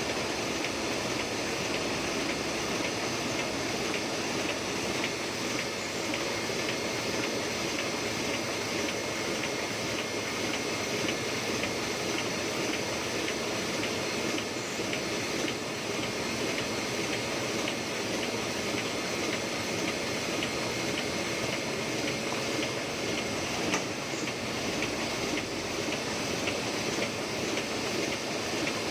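Heidelberg GTO 52 offset printing press running steadily, with a fast, even clatter and a faint steady high whine.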